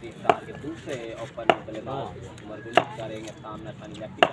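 Cricket bat tapped on the pitch by a waiting batter: four sharp knocks at an even pace, about one every second and a quarter, with faint voices behind.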